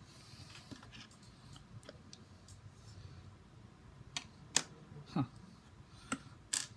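A few sharp clicks and light taps, clustered in the second half, as the small metal standoff and hardware are handled and fitted on a PC motherboard's M.2 slot.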